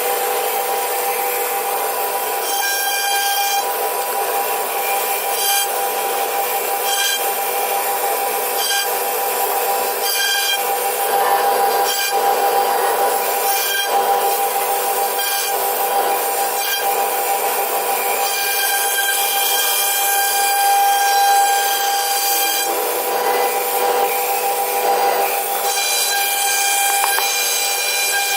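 CNC router spindle running with a steady high whine while its bit carves wood, with a rasping cutting noise and a faint tick repeating about every second and a half.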